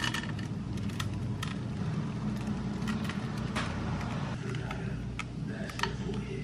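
Chocolate chips being sprinkled by hand from a bag onto banana bread batter in a loaf pan: scattered light clicks and rustles over a steady low hum.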